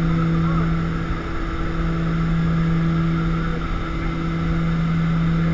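Steady drone of a Short Skyvan's twin turboprop engines and propellers heard from inside the cabin, a constant low hum under rushing air noise from the open rear door.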